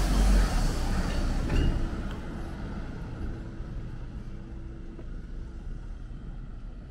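A passing vehicle, loud at first and then fading away over the first couple of seconds, leaving a steady, quieter background of distant traffic.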